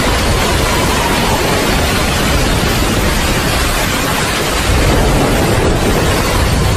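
Waterfall pouring down a rock face: a loud, steady rush of falling water with a deep low rumble underneath.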